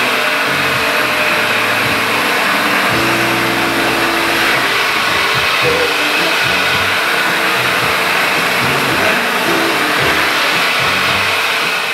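Overhead glass-grinding machine running steadily, grinding down the surface of a large cast-glass sculpture, giving a loud continuous whirring noise.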